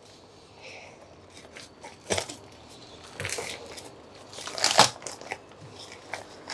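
Torn cardboard box being pulled open and plastic bags of coins being handled: irregular crinkling and rustling, with louder crackles about two seconds in and again near five seconds.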